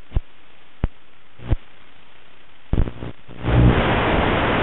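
Static from an analog FPV video receiver: a low steady hiss with a few sharp pops, then a crackle and a loud rush of static from about three and a half seconds in. It is the sign of the video link breaking up at the edge of its range on a low-power 25 mW transmitter.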